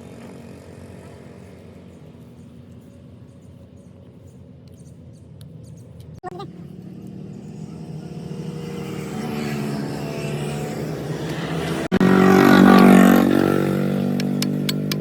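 An engine running with a steady hum that grows louder over the last several seconds, peaks, then eases a little.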